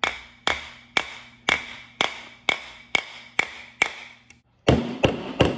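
Back of a large kitchen knife's blade striking a whole coconut held sideways to crack its shell: sharp knocks about two a second, each with a short metallic ring. After a brief pause near the end come three louder, quicker blows.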